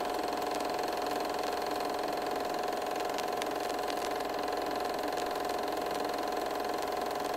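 Vintage film projector running: a steady mechanical whirring clatter with a constant hum.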